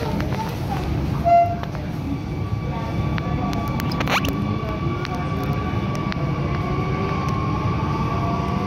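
Metropolis metro train pulling away from a station, heard from inside the car: a steady low rumble with a whine from the electric traction drive that rises slowly in pitch as the train picks up speed. A short loud tone sounds about a second in, and a quick rising sweep comes near the middle.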